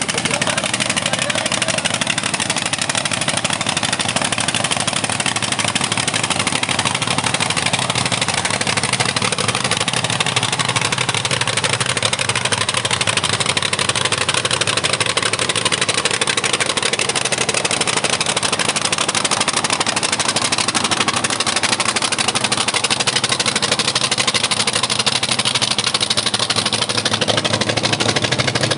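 Engine of a river sand-mining dredger running steadily at an even pace.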